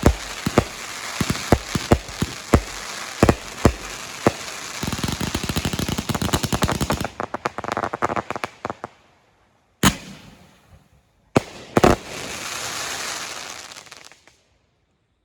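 Fireworks going off: a string of sharp bangs over steady crackling, then a dense run of rapid crackles that thins out, a few last separate bangs, and a final fizzing crackle that dies away near the end.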